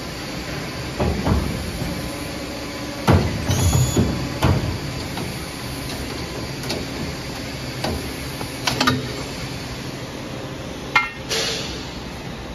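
CNC pipe bending machine bending rectangular metal tube: irregular clunks and metal knocks from the bender and tube over a steady workshop hum. A sharp metallic clang rings out near the end.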